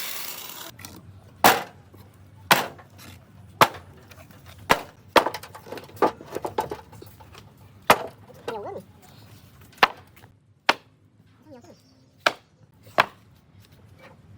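About a dozen sharp knocks on wood, struck singly at irregular intervals of roughly a second. A power tool is winding down in the first second.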